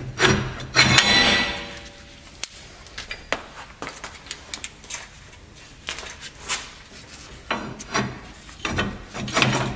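Steel leaf-spring U-bolt and saddle clinking and knocking against the spring and axle as they are fitted by hand: a louder metal clatter with a short ring in the first couple of seconds, then scattered light knocks.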